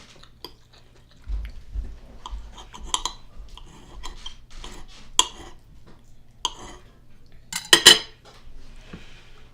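Cutlery clinking and scraping against a plate of food as it is eaten, in a string of small sharp clicks, with a louder double clink near the end.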